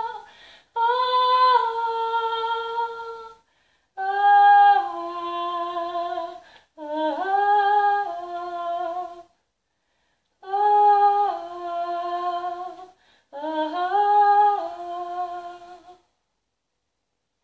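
A woman's voice singing wordlessly in about five short phrases. Each phrase is a few held notes that step up and down, with short breaths between.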